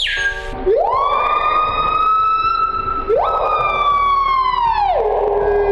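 Screaming piha calling: two long, loud whistled notes, each sliding up and then held. The second cuts in abruptly about three seconds in, and it falls away near the end.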